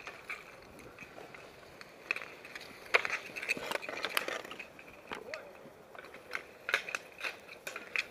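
Roller-hockey sticks clacking and knocking on asphalt during play, a string of short sharp clicks with the loudest crack about three seconds in.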